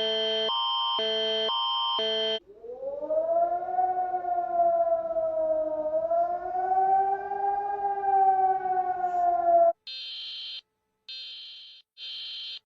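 Emergency alert alarm tones. A pulsing electronic alarm switches rapidly between two tone sets, then after about two seconds gives way to a siren that rises and sways slowly in pitch for about seven seconds. Near the end come short bursts of a high-pitched buzzy tone with gaps between them.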